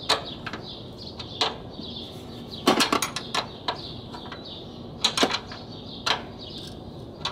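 Steel open-end spanner clinking against the nuts of a front strut's top mount as they are worked tight a bit at a time: irregular sharp metallic clicks, with a quick cluster about three seconds in and another about five seconds in.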